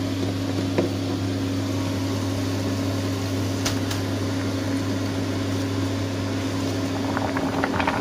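Steady electrical hum and fan noise from an induction cooktop heating a pot of water, with a couple of light clicks and some clatter as papaya leaves go into the stainless steamer basket.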